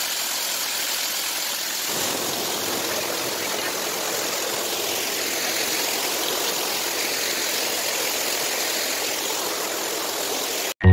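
Waterfall and stream water rushing steadily as an even hiss, fuller in the low end from about two seconds in; it cuts off suddenly near the end.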